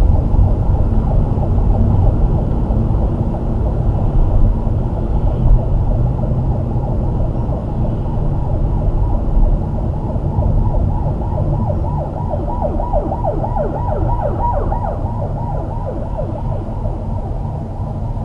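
Steady low rumble of a Mercedes-Benz W212 E-Class driving slowly in city traffic, as picked up by its dashcam. From about eleven seconds in, a fast-warbling siren-like tone comes and goes for a few seconds.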